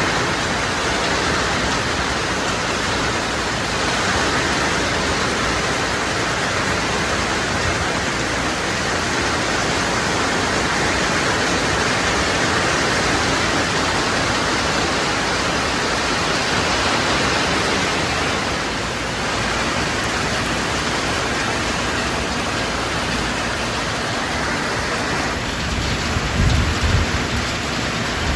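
Rain falling steadily, a dense even hiss, with a brief low rumble near the end.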